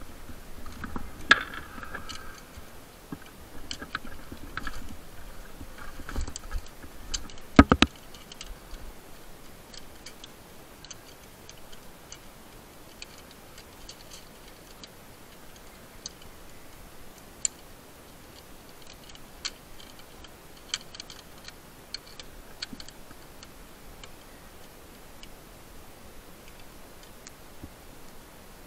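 Metal climbing hardware on a rope clicking and knocking as it is worked. The clicks come thick in the first eight seconds, with a sharp double click near eight seconds, then thin out to scattered single clicks.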